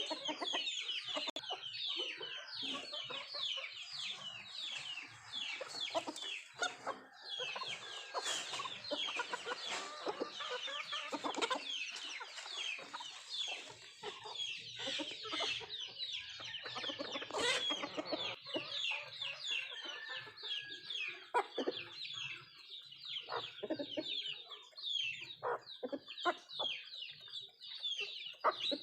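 A flock of nattu kozhi, Indian country chickens, clucking and chirping while they feed, with many short, high calls that fall in pitch following one another several times a second.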